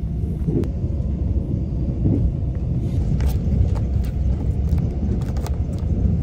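Passenger train cabin: a steady low rumble from the train running along the track, with a few faint light clicks over it.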